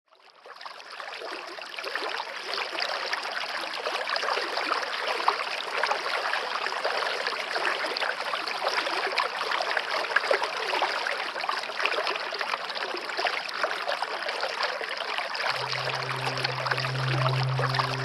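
Waterfall: a steady rush of falling water, fading in over the first second or two. A low steady drone comes in a couple of seconds before the end.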